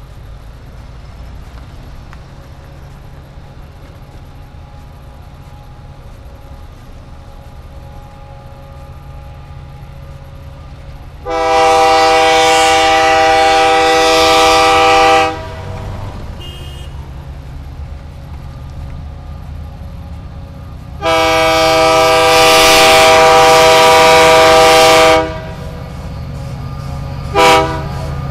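Air horn of an approaching SD40 diesel-electric freight locomotive at a level crossing, sounding a chord of several tones: two long blasts of about four seconds each, then a short toot near the end, over a steady low rumble.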